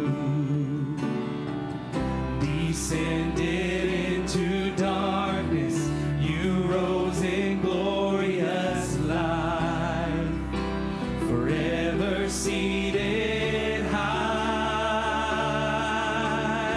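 Live church worship band playing a congregational song: sung voices with vibrato over keyboard, guitar and drums. A deep bass layer comes in about two seconds in, with cymbal strikes here and there.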